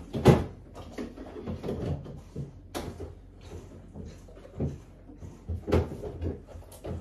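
Household knocks and clunks: several separate thuds and clicks of things being handled, the loudest just after the start.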